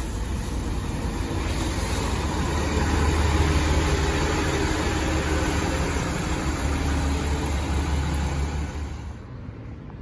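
Route bus engine running as the bus pulls past and drives away, a steady low drone that is loudest about three seconds in, then drops away near the end.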